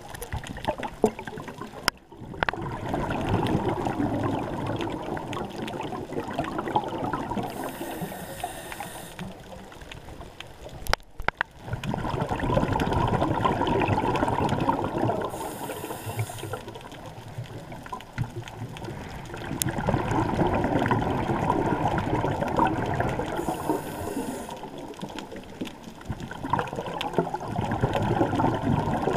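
Scuba diver breathing through a regulator underwater. Several-second bursts of bubbling exhalation alternate with short high hisses, repeating about every eight seconds.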